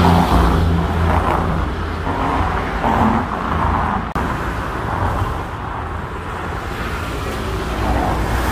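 Road traffic: a steady hum of car engines and tyres, swelling and fading as vehicles pass.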